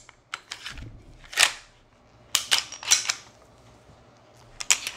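Glock 22C pistol being handled for takedown: sharp metal-and-polymer clicks and clacks from the slide and frame as they are worked by hand, about eight at uneven intervals.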